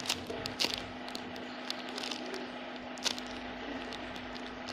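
Clear plastic bags around squishy toys crinkling in a few short rustles as they are handled, over a steady low hum.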